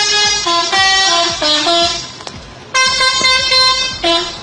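Indonesian bus 'telolet' horn, a multi-trumpet air horn, playing a quick tune of stepping notes. After a short break it holds one long note, then starts a new run of notes near the end.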